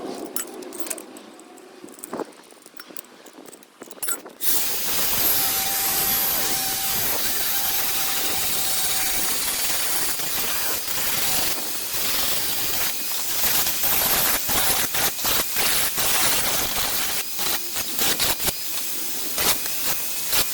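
A power tool working sheet steel, starting about four seconds in with a steady, loud hissing rasp, then cutting in and out in short runs near the end.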